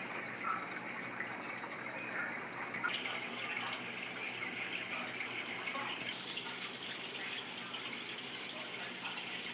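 Steady rush of running water, its hiss brightening about three seconds in.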